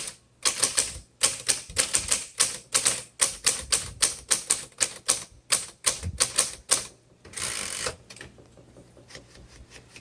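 Smith Corona Galaxie II manual typewriter being typed on: a quick run of key strikes, about three a second. They stop at about seven seconds in, followed by a short sliding rasp, likely the carriage moving, and a few faint ticks.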